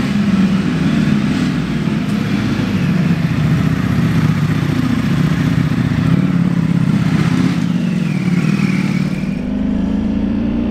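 Two Ducati Panigale V4R superbikes with V4 engines running at low speed as they ride off. Near the end the engine note rises steadily as a bike accelerates.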